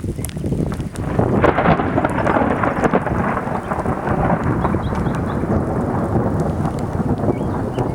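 Thunder rumbling, swelling about a second in and then rolling on steadily.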